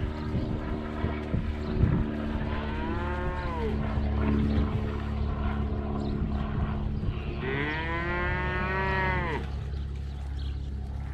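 Dairy cattle mooing twice, a short moo a couple of seconds in and a longer, louder one about halfway through, over a steady low machine hum.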